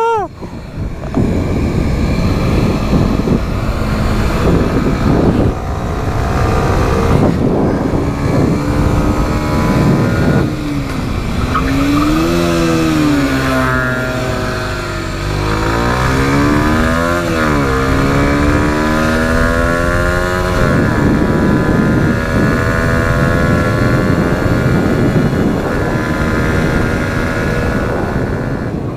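Motorcycle engine heard from the rider's seat while riding. Its pitch climbs and drops several times around the middle as the throttle and gears change, over a steady rush of wind and road noise.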